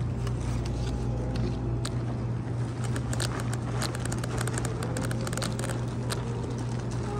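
Plastic carrier bags crinkling and rustling as they are lifted and moved, thickest from about three to six seconds in, over a steady low hum.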